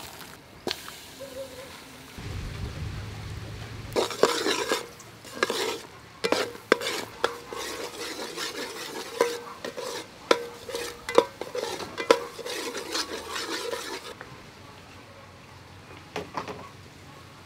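Metal spoon stirring and scraping in an aluminium pot, with repeated clinks, as palm sugar melts and bubbles into caramel with a light sizzle. The stirring dies down a few seconds before the end, with a last couple of clinks.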